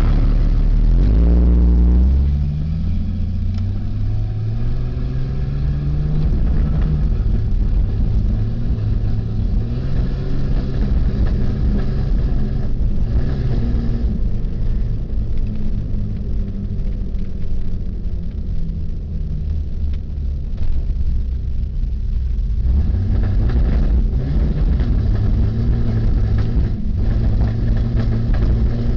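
Vehicle engine running and accelerating, its pitch climbing over the first few seconds and then holding roughly steady, with irregular breaks in its note. The uploader takes this for a misfire.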